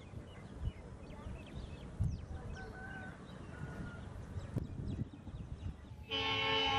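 Air horn of an approaching WDP-4D diesel locomotive sounding a loud, steady multi-note blast that starts abruptly near the end. Before it there is faint ambience with birds chirping.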